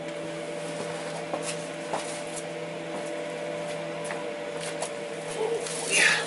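Scattered light metallic clicks of hand tools and a bolt being worked under a truck's front axle, over a steady hum. There is a short, louder scrape near the end.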